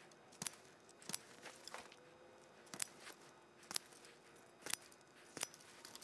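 Wire strippers biting and pulling insulation off the ends of 12-gauge copper house wires, a series of sharp clicks about once a second.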